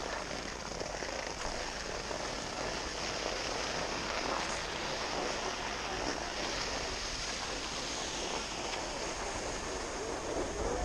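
Steady rushing noise of skiing: wind buffeting a GoPro's microphone along with the hiss of skis sliding on snow.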